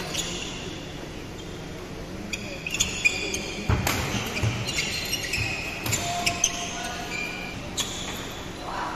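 Badminton doubles rally: a string of sharp racket strikes on the shuttlecock, one loudest a little before halfway, with short, high squeaks of players' shoes on the court floor between them.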